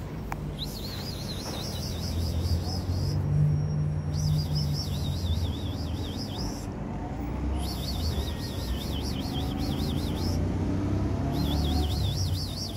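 Background music: a looping high, fast trilling figure that repeats in bursts every few seconds over a low bass line.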